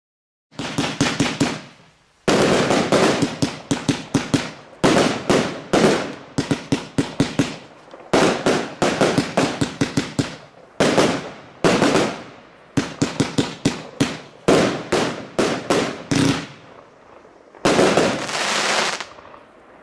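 TB82 Astral 36-shot fireworks cake firing: rapid volleys of shots and bursts in quick succession, in several salvos separated by brief lulls, ending with a longer, denser burst near the end.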